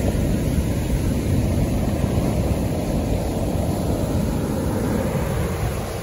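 Sea waves breaking and washing up a sandy beach, heard as a steady low rumble of surf, with wind buffeting the microphone.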